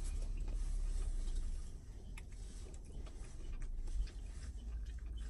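Light handling of takeout food packaging, with a few small clicks about two, three and a half and four seconds in, over a low steady hum.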